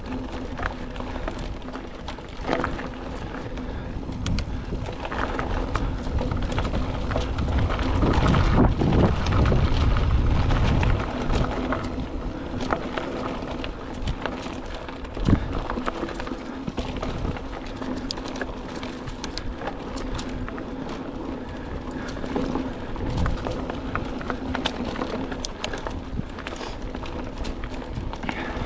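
Mountain bike riding over a dirt and gravel singletrack: tyres rolling and crunching, the bike rattling over bumps, and wind buffeting the microphone. The rumble is loudest from about eight to eleven seconds in, and there is a sharp knock about fifteen seconds in.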